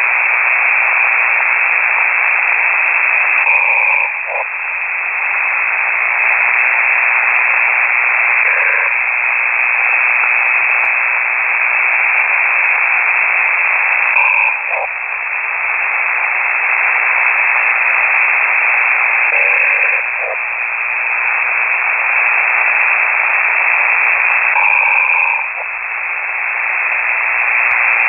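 A sleeping radio amateur snoring over the air, heard through a KiwiSDR shortwave receiver: steady radio hiss with a snore breaking through about every five seconds, the sign of a microphone left transmitting while its operator sleeps.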